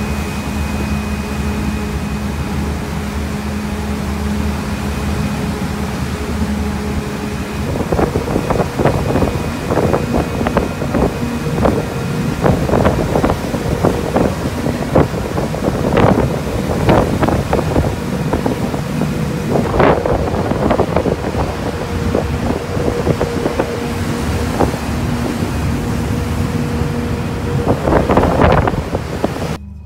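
Passenger ferry's engine running with a steady hum, under wind noise on the microphone that starts gusting hard about a quarter of the way in.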